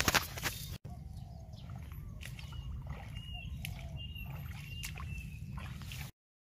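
Tall grass rustling and crunching underfoot for the first second. Then a steady low rumble of outdoor ambience with several short high bird chirps and a few light clicks. The sound cuts off to silence shortly before the end.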